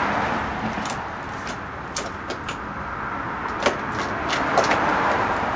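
Metal hand tools being handled: a series of sharp metallic clinks and clicks, most of them between about three and a half and five seconds in, over a steady background hiss.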